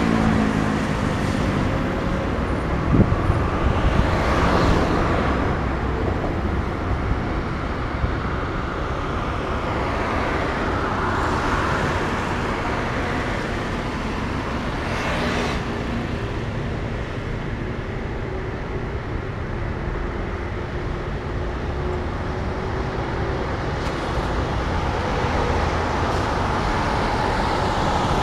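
Road traffic on a highway, a steady rush of tyres and engines with several vehicles swelling past one after another.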